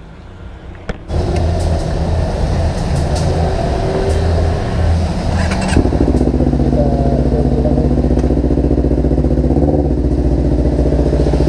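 Motorcycle engine running, getting louder about a second in, then pulling away about six seconds in and running steadily as the bike rides off.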